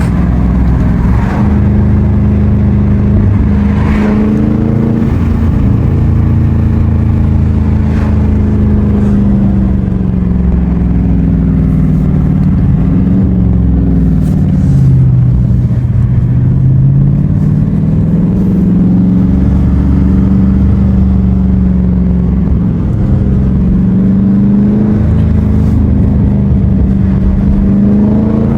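The 6.4-litre 392 HEMI V8 of a Dodge Charger Scat Pack with a mid-muffler delete, running under way. Its exhaust note rises and falls in pitch with the revs as the car eases off and accelerates again.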